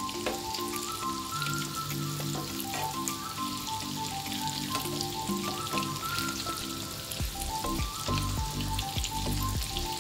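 Hot oil sizzling and crackling steadily as breaded chicken cheese balls deep-fry in a pan, with background music playing; a bass line comes in near the end.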